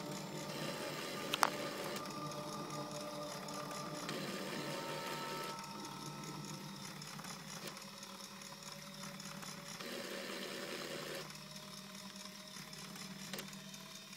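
Electric motors and gears of a LEGO drill press model running with a steady mechanical whir that shifts in level and tone in steps every few seconds; a single sharp click about a second and a half in.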